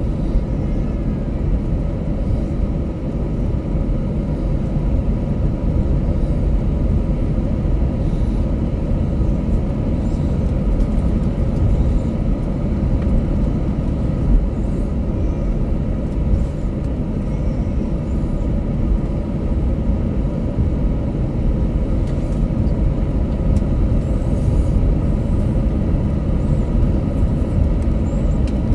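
Airbus A321-200 cabin noise while taxiing: a steady low rumble from the engines and the rolling airframe, heard from inside the cabin, with a faint steady whine above it.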